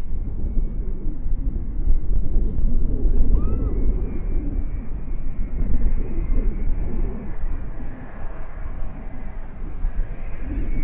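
Wind gusting across the microphone, with the distant engines of a jet airliner at the airport and a faint steady whine from them.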